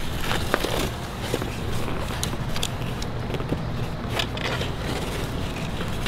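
Cardboard shipping box being handled and pried open: a few short faint scrapes and crinkles of cardboard over a steady low background rumble.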